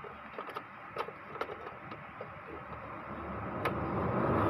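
Light clicks and taps of plastic parts being handled inside an opened Epson L3110 inkjet printer. From about three seconds in, a rushing noise swells up and grows louder toward the end.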